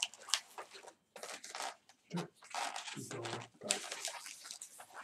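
A long white latex modelling balloon being twisted and handled into leg segments, the rubber squeaking and rubbing in short, irregular squeaks.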